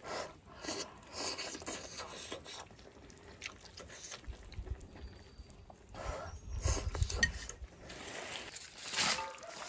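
A person eating: chewing, with scattered light clicks of chopsticks against a bowl. Near the end, a short rustle as a hand reaches into a basin of fresh houttuynia leaves.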